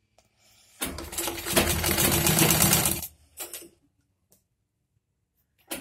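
Usha sewing machine stitching a zipper onto tracksuit fabric: a run of rapid stitches starting about a second in and stopping after about two seconds, a brief second burst, then a pause before it starts up again right at the end.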